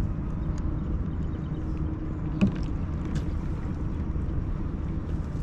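Steady low rumble of the open river around an anchored fishing boat, with a single sharp knock about two and a half seconds in.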